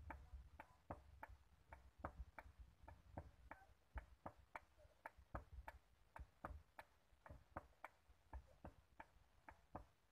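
Faint hand-hammer blows on red-hot iron on a small anvil, forging a knife blank, in a steady rhythm of about three strikes a second.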